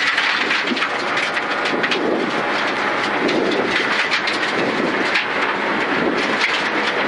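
Suzuki Ignis Sport rally car heard from inside its cabin at speed on gravel: its 1.5-litre engine runs hard under a steady rush of tyre and road noise, with loose gravel rattling against the underbody.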